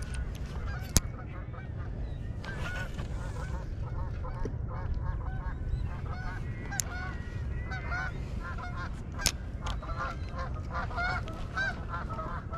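Geese honking, many short overlapping calls that grow busier toward the end, over a steady low rumble. Three sharp clicks stand out, about a second in, near the middle and later on.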